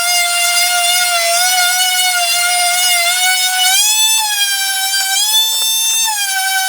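Electric power sander with 220-grit paper running on a pine board: a loud, steady, high motor whine that steps up slightly in pitch about four seconds in and wavers near the end.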